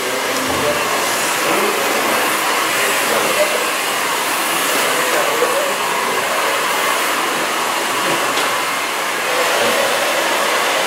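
Steady, unbroken rushing noise of blown air from a motor-driven blower, with faint voices beneath it.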